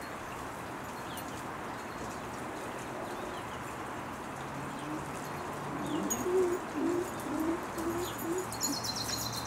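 A dove cooing, a run of low wavering notes starting a little past halfway, over a steady outdoor hiss, with a few faint high chirps.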